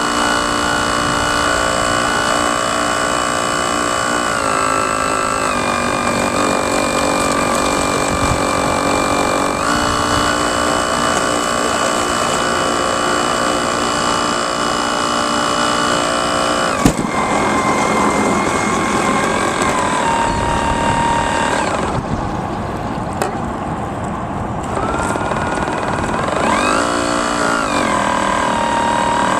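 Radio-controlled model boat motors whining steadily, their pitch stepping down and back up several times as the throttle changes, with falling-then-rising glides near the end. A single sharp knock about 17 seconds in.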